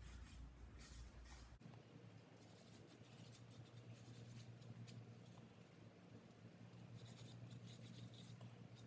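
Faint rubbing of a cloth rag wiping wood stain over a wooden board, in short strokes, over a steady low hum.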